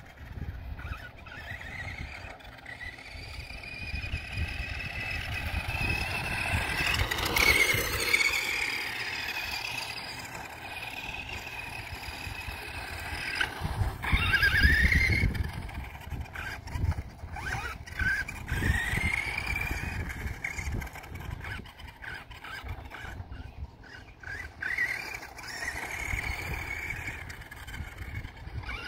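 Radio-controlled stadium truck's 27-turn Axial electric motor and drivetrain whining, the pitch rising and falling again and again as the throttle is worked. It is loudest around seven and fifteen seconds in.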